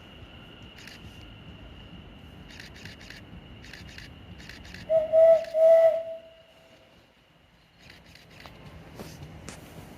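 Train horn giving two short toots of the same pitch about five seconds in, over a faint steady high whine and a few light clicks.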